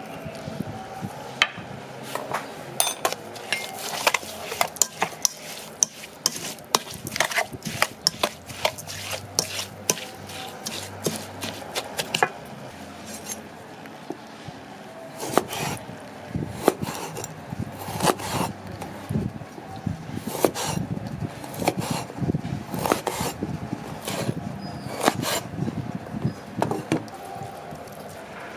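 Wooden pestle knocking and scraping against a stainless steel bowl as chopped chili and garlic are mashed and stirred: a long run of sharp, irregular clinks and knocks, thinning out for a couple of seconds near the middle.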